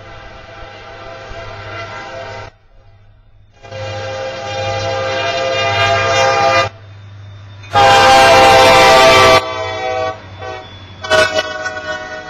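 Diesel freight locomotive's air horn sounding the grade-crossing warning as the train nears the road crossing. It gives two long blasts, then a shorter and louder third. A fourth blast begins near the end.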